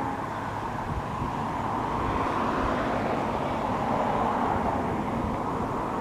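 Rushing noise of a passing vehicle, with no horn or clear engine tone, swelling in the middle and easing near the end.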